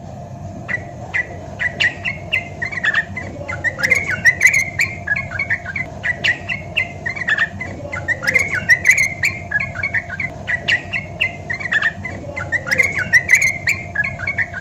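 Yellow-vented bulbul (trucukan) singing fast, bubbly chattering phrases, three phrases in a row, each a few seconds long. A faint steady hum runs underneath.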